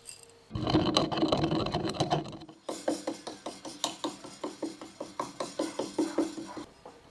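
A couple of seconds of rough scraping and handling, then a steady run of sharp knocks on wood, about four a second, like a knife chopping on a wooden cutting board.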